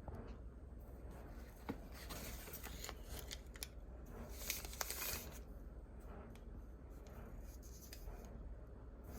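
Faint rustling and handling noise with scattered small clicks, louder in two stretches around the middle.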